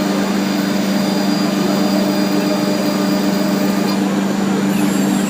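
CNC wood router's spindle running at one steady pitch over a constant noisy hiss of the machine at work. A few faint high falling whistles come in near the end.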